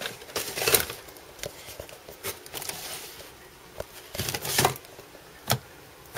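Rummaging through a kitchen cupboard: containers and packages knocking together and rustling as they are shifted about, in irregular knocks with the loudest a little after halfway through.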